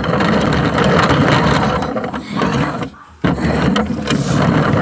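Loud rustling and scraping of a phone being handled on the move, its microphone rubbing against clothing, with a brief break about three seconds in.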